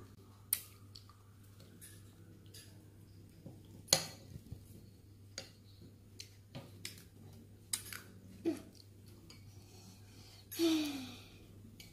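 Metal spoons clinking and scraping against small glass bowls as cake is eaten: scattered sharp clicks, the loudest about four seconds in. A child's short voice sounds twice near the end.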